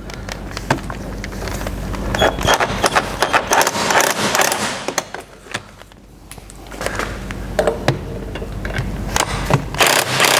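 Hand tools and steel brake parts clicking, knocking and scraping as a Porsche 928's lower rear brake caliper is unbolted and worked free, with a brief metallic ring about two seconds in and a louder scrape near the end.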